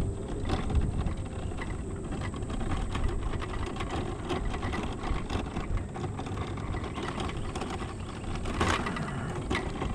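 A vehicle on the move: steady low engine and road rumble, with frequent small rattles and clicks.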